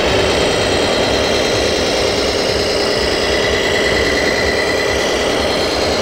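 Radio-controlled 8x4 tipper truck driving slowly, its engine sound running steadily like a diesel idling, with no sudden sounds.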